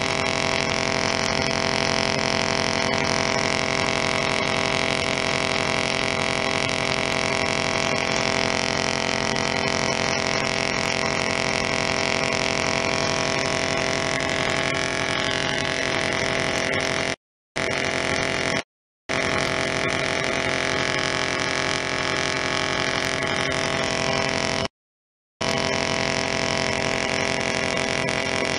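Half-bridge solid-state Tesla coil throwing sparks: a loud, steady, pitched buzz from the arcs. It cuts out abruptly for a moment three times in the second half, then starts again each time.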